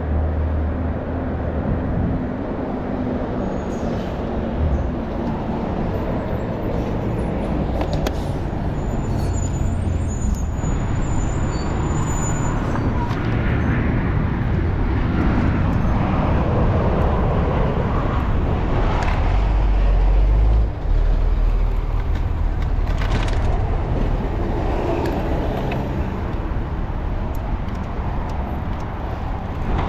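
City street traffic: cars and other motor vehicles passing, a continuous heavy rumble that swells to its loudest a little past the middle.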